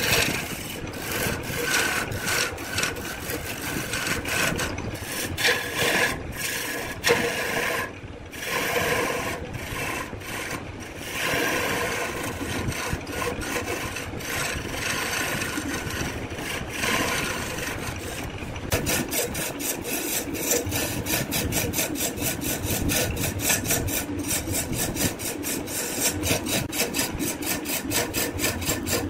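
Wood lathe spinning a large wooden blank while a hand-held turning chisel scrapes and cuts into it, a rasping cut that comes and goes with short breaks. About two-thirds of the way through it settles into a fast, even pulsing scrape as the tool rides the turning wood.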